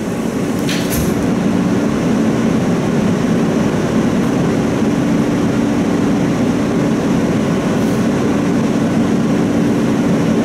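E train subway car doors shutting with a short thud about a second in, then the car's steady electrical hum while it stands at the platform.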